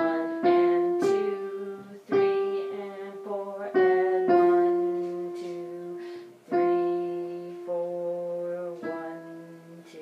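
Piano playing a slow run of chords, about eight strikes, each left to ring and fade before the next.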